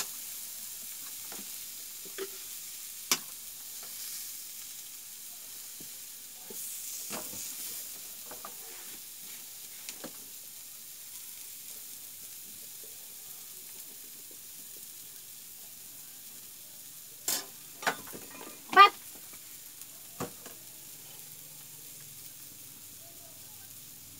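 Vegetables frying in a kadai on a gas stove, a soft sizzle, with a metal spatula clinking and scraping against the pan every few seconds. About three quarters of the way through come a couple of louder clanks and a short, wavering high squeal, the loudest sound.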